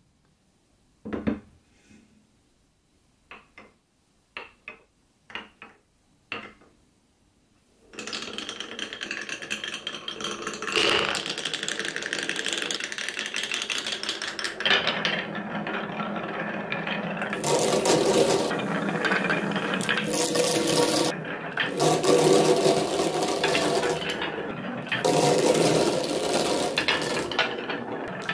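Glass marbles in a wooden marble run: a few separate clicks, then from about eight seconds in a continuous rolling rattle as many marbles run down the wavy grooved wooden boards.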